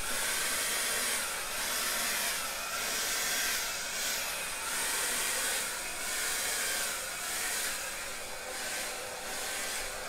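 Handheld hair dryer blowing steadily, its rushing air swelling and dipping every second or two as it is swept back and forth over wet acrylic paint.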